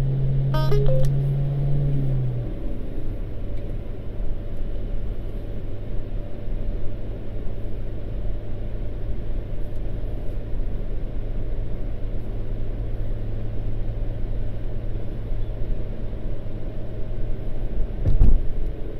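Car engine and tyre noise heard from inside the cabin while driving: a steady low hum whose pitch drops about two seconds in, a short rising chirp shortly before, and a single thump near the end.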